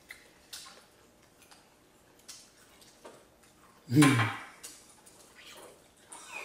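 Light clinks and taps of dishes and utensils at a meal table, with one short, low-pitched vocal sound about four seconds in, the loudest thing here.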